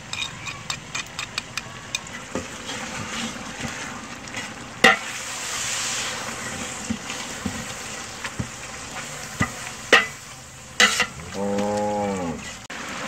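Onion-tomato masala sizzling and frying in a large aluminium pot while it is stirred with a long metal ladle. Light taps come first as spices are knocked off a spoon, then a few loud clanks of the ladle against the pot. A short pitched call rises and falls near the end.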